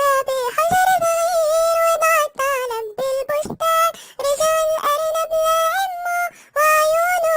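A children's song about a rabbit and a fox, sung in a high-pitched cartoon-character voice. It holds long, steady notes in short phrases with brief breaks between them.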